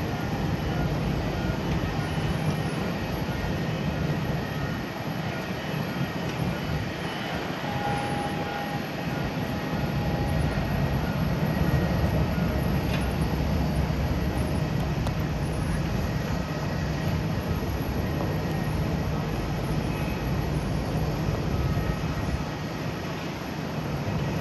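Airbus A350-900's Rolls-Royce Trent XWB jet engines running at taxi power as the airliner taxis: a steady jet rumble with a faint high whine.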